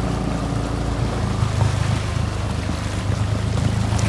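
Red Honda ATV's engine running steadily at low speed as the four-wheeler wades through deep creek water, with water churning and splashing around it.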